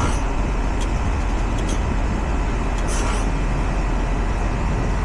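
Outdoor heat pump condenser unit running, a steady fan and compressor hum with a few faint ticks.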